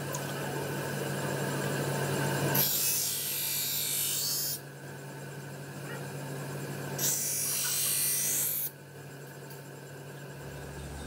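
Large motor-driven grinding wheel running with a steady hum, while a steel knife blade is ground against it in two passes of about two seconds each, one about three seconds in and one about seven seconds in, each giving a harsh grinding hiss.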